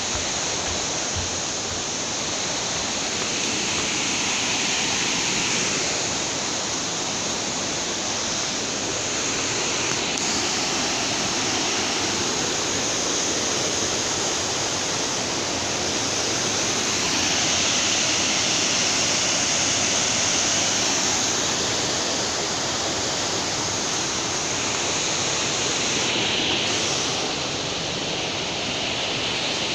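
Waterfall's falling water rushing steadily, a continuous hiss that swells and eases slightly every few seconds.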